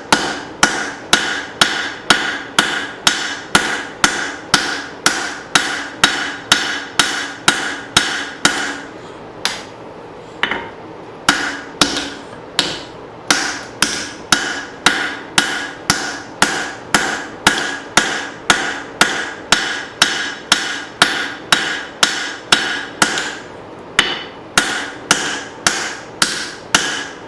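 Hand hammer striking hot leaf-spring steel on an anvil, about two blows a second, drawing out and thinning an axe-head blade. Each blow rings, and the rhythm breaks off briefly about ten seconds in and again near the end.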